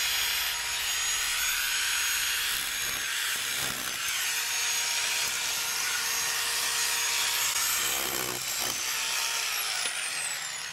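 Electric masonry drill boring into the mortar joints of a brick wall, running steadily to loosen the bricks for removal. It eases off near the end.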